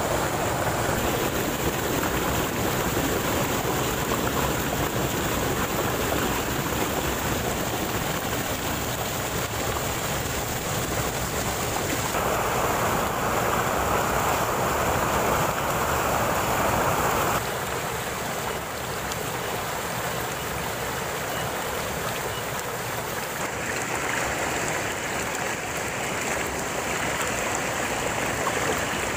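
Shallow rocky mountain stream rushing and splashing over stones and small cascades, a steady rush of water whose tone shifts abruptly a few times.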